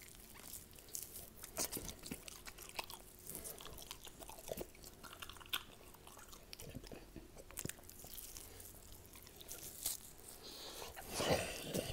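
A man biting, tearing and chewing raw ribeye steak close to the microphone: irregular wet smacks and clicks of teeth and mouth on the meat, with a louder burst near the end.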